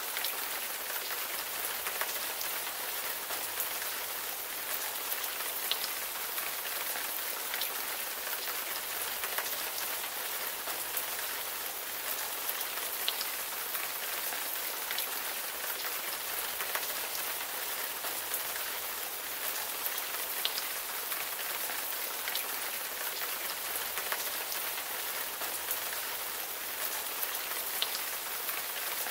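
Steady rain falling: a dense, even hiss with a sharper drop tick now and then.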